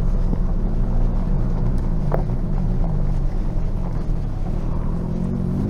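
Toyota Tacoma's engine running under load while the truck crawls up a steep trail obstacle, its pitch wavering up and down with the throttle. A short click about two seconds in.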